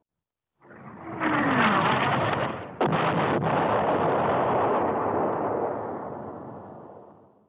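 Explosion sound effect: a rumbling blast that builds about a second in, a second sharp blast nearly three seconds in, then a long rumble fading away.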